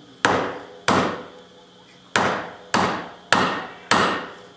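Six sharp knocks, each ringing briefly, as the piston of a 1970 Firebird front brake caliper is driven down into its bore with the butt of a tool handle. The piston is going in harder than it should past the new seal.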